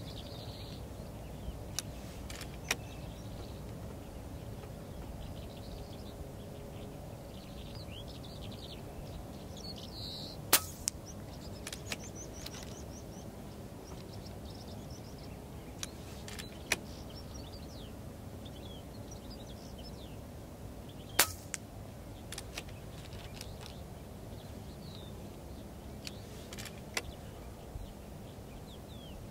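AirMaks Katran X HP .22 PCP air rifle firing through its moderator: several sharp, short cracks spread seconds apart, the two loudest about ten and twenty-one seconds in, with lighter clicks between them. Under them runs a steady low rumble, with faint bird chirps.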